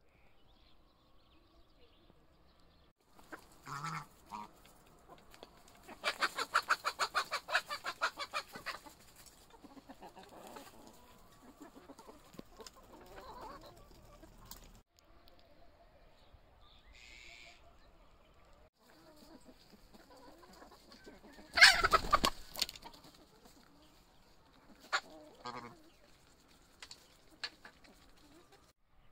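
Farmyard chickens clucking as they feed, with a quick run of repeated clucks a few seconds in and one loud call about two-thirds of the way through, then a few short calls.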